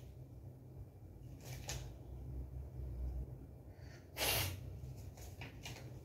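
Loose sheets of paper rustling as they are handled and sorted, in short strokes, with one louder rustle about four seconds in, over a steady low hum.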